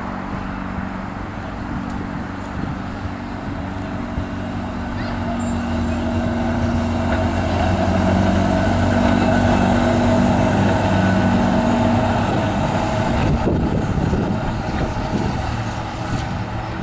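Blackpool Balloon double-deck tram passing by on its rails. Its motor and gear hum holds a steady pitch, grows to its loudest as the tram goes past about halfway through, then fades, with a few sharp clicks near the end.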